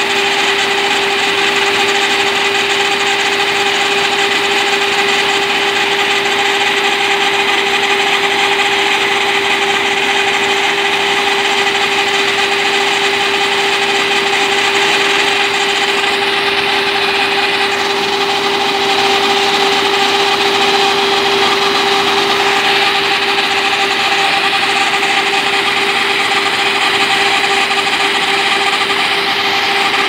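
Zoomlion combine harvester running at a steady working speed while its unloading auger discharges threshed paddy: a loud, unchanging machine drone with a steady hum.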